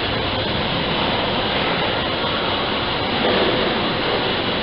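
Steady mechanical running noise of an early-19th-century rolling mill beam engine and its gearing.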